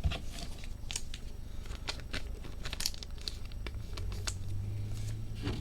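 Trading cards and plastic being handled at a table: scattered light clicks, rustles and crinkles.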